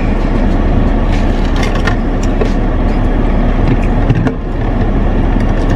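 Steady low rumble of a car running, heard inside its cabin, with a few light clicks and rustles of food packaging being handled, one sharper click about four seconds in.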